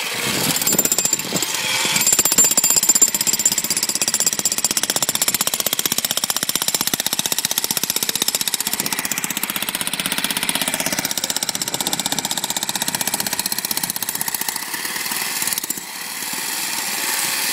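Electric demolition hammer chipping rapidly at concrete or tile, a fast steady hammering with a brief let-up near the end, as the floor or wall is broken open to reach a leaking pipe.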